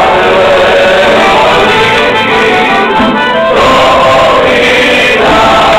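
A live folk band playing a song with guitar accompaniment, the music loud and continuous.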